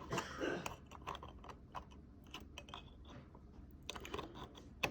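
Faint scattered clicks and rustling from cables and a plastic switch box being handled while a cable is fitted into its port.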